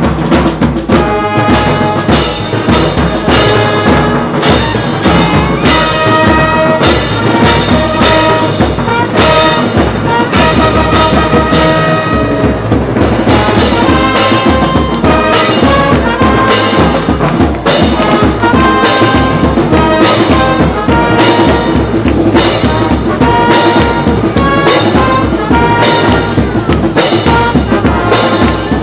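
Marching band of brass and drums playing, trumpets and trombones carrying a melody of held notes over a steady drum beat of about one and a half strokes a second.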